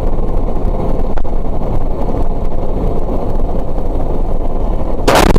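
Steady low rumble of a vehicle driving on a snowy road, heard from inside the cabin. About five seconds in, a sudden loud crash as it collides with an oncoming vehicle.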